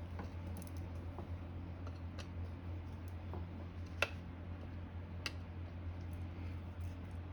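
A few sharp, scattered clicks and taps of a screwdriver working a stuck screw on a small electric motor's housing, the loudest about four seconds in, over a steady low hum.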